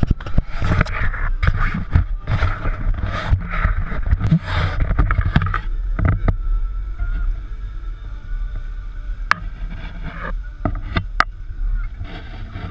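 Fishing boat's engine running steadily at trolling speed, with rushing wind and water from the wake that is heavy in the first half and eases off. A few sharp clicks sound in the second half.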